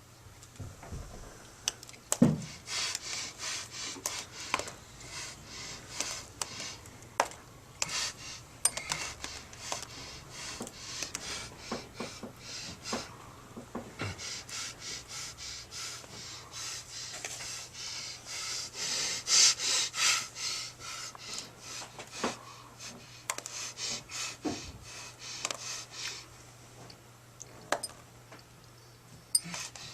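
A person breathing hard in quick, noisy gasps, coming in bouts with short pauses, over a steady low hum.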